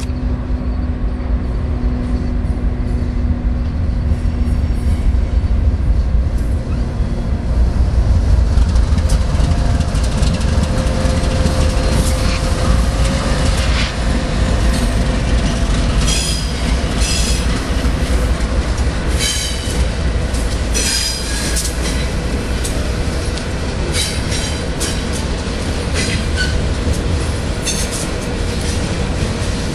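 BNSF freight train passing close beneath, led by diesel locomotives: a deep, loud engine rumble. From about twelve seconds in come repeated short, high squeals from the wheels on the curving junction track.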